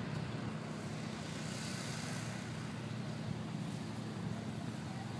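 An engine running steadily at idle, a low even hum with no revving.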